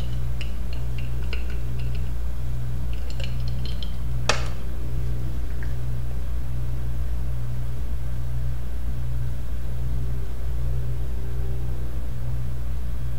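Seagate Momentus 7200 rpm laptop hard drive under a benchmark: quick ticking of the heads seeking during the random access test, with one sharp click about four seconds in. The ticking then stops, leaving a steady low hum with a faint regular pulse while the drive reads sequentially.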